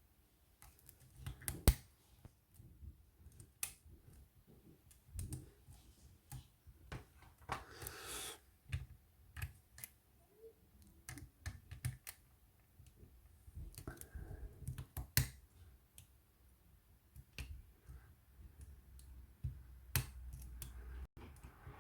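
Metal lock pick and tension wrench working inside a cabinet wafer lock: irregular small clicks and ticks as the wafers are set, with a short scrape about eight seconds in.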